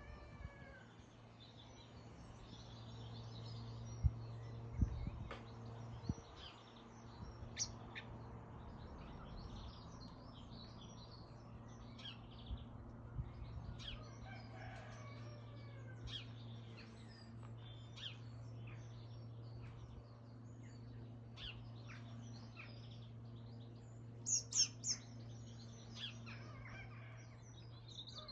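Garden birds, mainly house sparrows, chirping busily in short high notes throughout. A rooster crows once about halfway through. A steady low hum runs underneath, and two sharp thumps sound about four and five seconds in.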